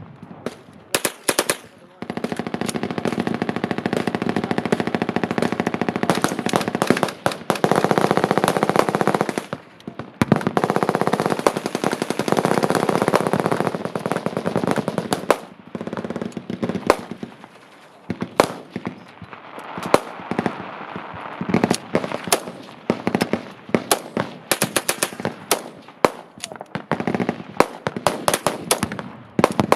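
Machine guns firing: long unbroken bursts through the first half, then scattered single shots and shorter bursts.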